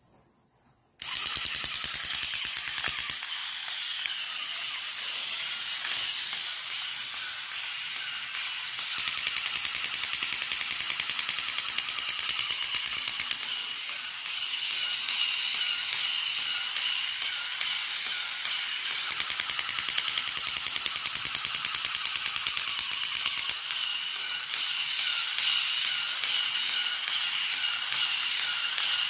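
Battery-operated crawling Spider-Man toy's small gear motor running, starting about a second in, with a fast, steady ratcheting clatter as its limbs drive it along the tiled floor.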